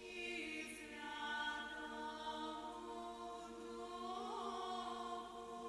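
A choir singing slow, held chords: choral music from a film soundtrack.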